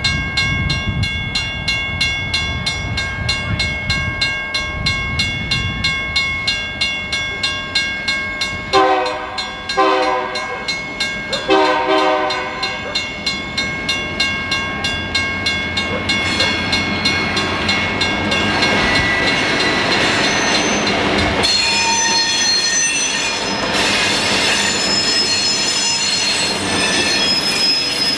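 A bell rings rapidly, about four strokes a second. About nine seconds in, an EMD diesel locomotive's air horn sounds three blasts. Then the locomotives and freight cars roll past close by, their wheels squealing on the curve.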